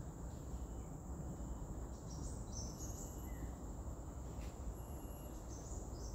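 Outdoor background sound: a steady low rumble under a steady high-pitched insect-like tone, with a few short chirps about two seconds in and again near the end.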